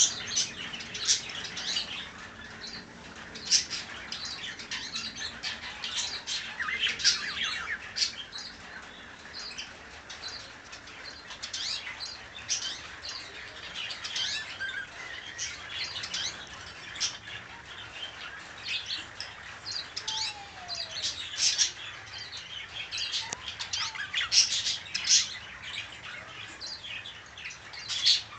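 Caged Eurasian siskins chirping and twittering in many short, high notes, with wing flutters as a bird flies across the cage.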